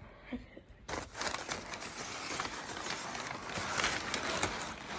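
Packing paper crinkling and rustling as it is handled and pulled about in an opened cardboard shipping box, starting about a second in and running on as a continuous crackle.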